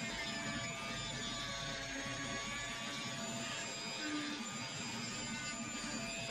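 Dremel rotary tool with a sanding drum running at speed, sanding cured epoxy and driftwood: a steady motor whine over a rasping hiss, wavering slightly in pitch as the drum is pressed into the work.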